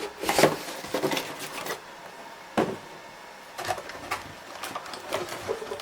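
Packaging being handled as a boxed network dome camera is taken out: rustling and small knocks in the first second and a half, a single sharper knock about two and a half seconds in, then a few more light clicks.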